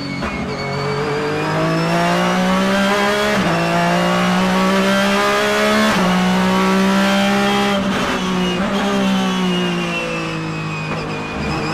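Porsche Daytona Prototype race car engine at high revs, climbing through the gears with quick upshifts about three and six seconds in, then downshifting with a falling pitch and short blips toward the end.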